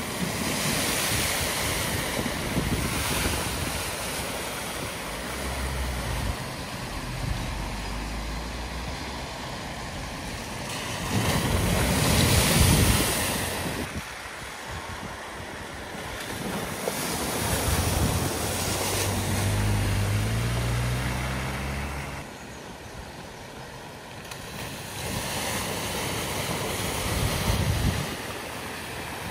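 Cars driving through a flooded ford one after another, wheels throwing up splashing water over the steady rush of the floodwater. Engines are running underneath, and now and then a rising engine note is heard as a car accelerates out of the water. The loudest splash comes a little before the middle.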